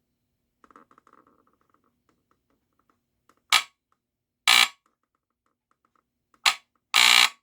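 Fyrnetics 1200/1230 hardwired smoke detector's alarm horn giving four short, irregular chirps in the second half, the last one the longest. The alarm is sounding only fitfully: finicky, and the owner thinks its sensitivity may need adjusting.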